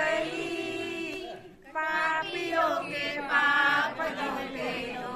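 People singing together, with no instruments. The notes are held and drawn out, with a short break about one and a half seconds in.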